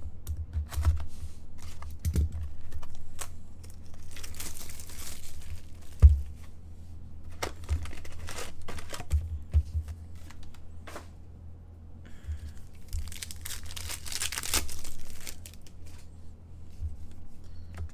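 Hockey card packs being torn open, the wrappers crinkling in two long stretches, with taps and clicks from the cards and packaging being handled. There is a sharp knock about six seconds in.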